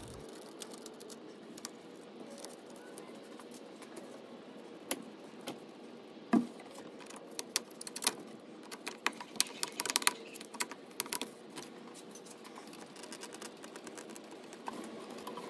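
A series of small clicks and rattles from a driver working a worm-gear hose clamp, and the rubber coolant hose being twisted off the plastic thermostat housing outlet, with a short rubbery squeak partway through. The clicks come in a cluster through the middle of the stretch, over a faint steady hiss.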